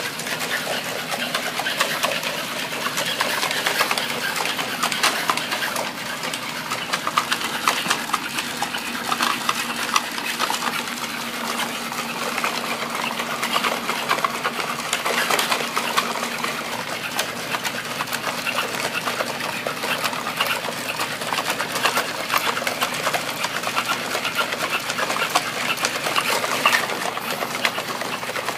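NAO humanoid robot walking: its leg joint motors whirring with a dense, steady clatter of small clicks from the gears and feet, starting abruptly just before and keeping on throughout.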